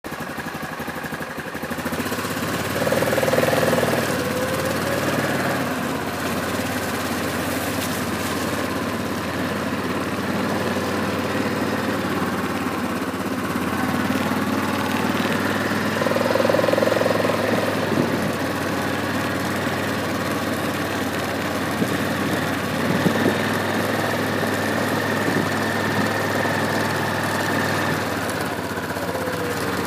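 ATV engine running steadily as the four-wheeler is ridden along. It is quieter for the first couple of seconds, then louder and even.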